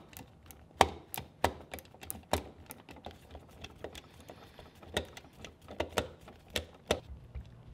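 Hand screwdriver driving the metal mounting screws of a wall outlet into the electrical box: a run of sharp, irregular clicks and ticks as the bit turns and seats the screws.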